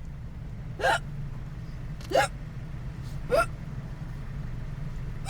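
A woman hiccuping three times, about once every second and a quarter, each a short, sharp hiccup, in a long bout of hiccups that won't stop. A steady low car-cabin hum runs underneath.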